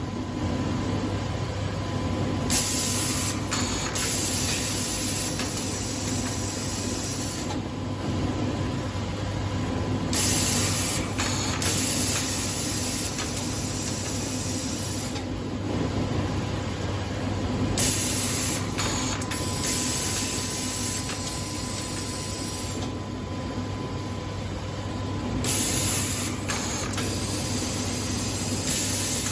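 Kajiseki yarn-package machine running with a steady motor hum and a faint steady tone. About every seven and a half seconds a loud compressed-air hiss starts and fades over a few seconds as its pneumatic parts cycle, four times in all.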